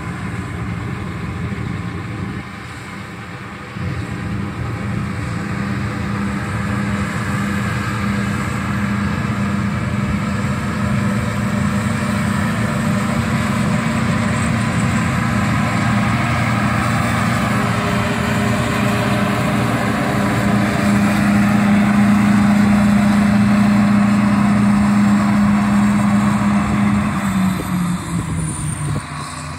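John Deere combine harvester running while cutting wheat: a steady engine drone that grows louder as the machine comes closer, its pitch stepping down near the end.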